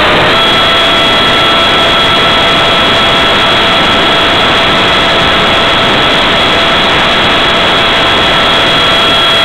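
Electric ducted fan of a Habu RC foam jet, heard from a camera mounted on the plane: a steady high whine over a loud, dense hiss. The whine steps up slightly in pitch just after the start and then holds level.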